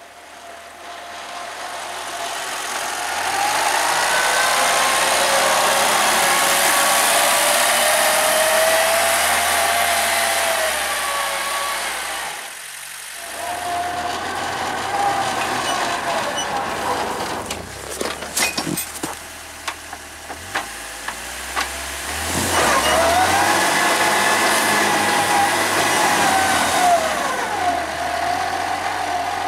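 Homemade tractor's engine working under load while pushing snow with a front blade, its pitch rising and falling as it revs up and eases off. It grows louder over the first few seconds, drops briefly about twelve seconds in, and a run of sharp clicks comes around eighteen to twenty seconds before it revs up again.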